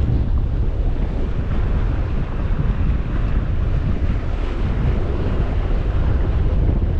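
Steady wind buffeting the microphone, a dense low rumble with no breaks.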